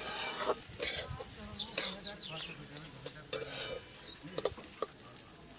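Metal spatula scraping and stirring Gobindobhog rice as it fries in ghee in a metal karahi, with a light sizzle. The scrapes come irregularly and thin out toward the end.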